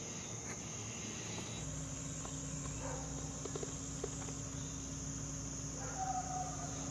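Faint, steady high-pitched chirring of insects outdoors. About one and a half seconds in, a low steady electrical hum sets in beneath it.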